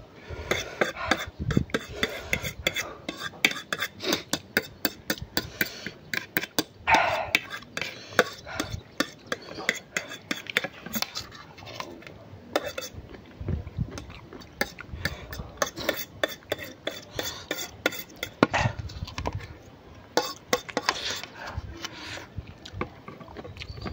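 Metal fork clicking and scraping against a plate in many quick, irregular strokes, with mouth sounds of eating in between.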